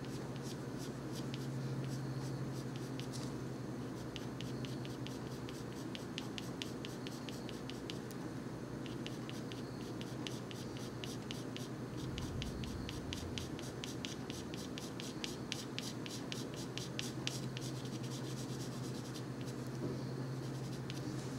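Colored pencil scratching on paper in quick, repeated short shading strokes, several a second, over a steady low hum.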